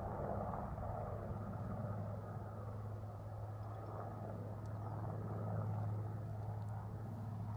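Steady low drone of a running engine, with an even rushing noise over it.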